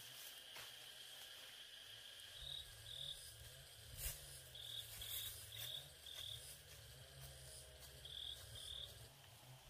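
Insects chirping: a steady high trill with short chirps repeating about every half second in small groups. A soft knock comes about four seconds in.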